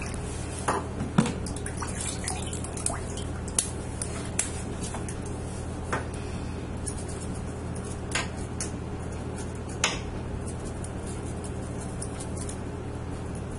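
Scattered small splashes, drips and clicks of a knife and hands working a fish in a plastic bowl of water in a stainless steel sink, over a steady low hum.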